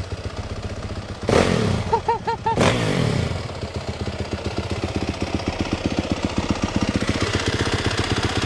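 Yamaha YZ450FX's single-cylinder four-stroke engine idling with an even, rapid beat, revved sharply twice, about a second and a half in and again a second later, each time falling back to idle.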